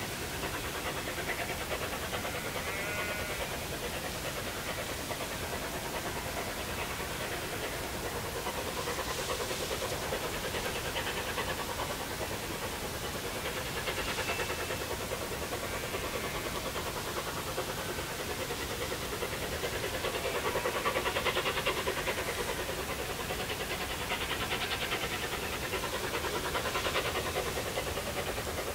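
Narrow-gauge steam locomotive working hard uphill, its exhaust beating in a fast, even chuff that grows louder about two-thirds of the way in as it approaches.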